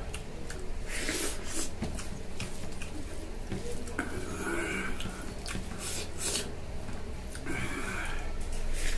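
Fingers mixing rice and curry in a steel plate: soft squishing with scattered small clicks of hand and food against the metal.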